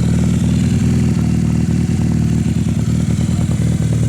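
Honda CB250 Nighthawk's air-cooled parallel-twin engine idling steadily through its exhaust, with an even, rapid exhaust pulse.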